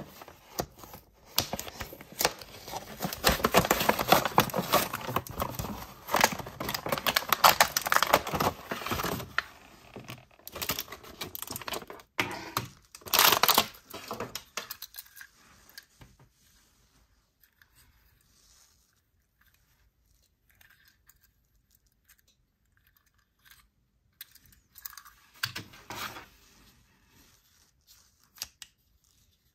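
Cardboard-and-plastic blister packaging of a die-cast toy car being torn and crinkled open for about fourteen seconds, with a loud rip near the end of it. Then mostly quiet, with a few faint rubs and clicks of the toy car and its plastic launcher being handled.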